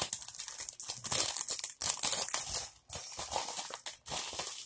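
Plastic packaging crinkling and rustling as it is handled, in irregular crackles with two short pauses.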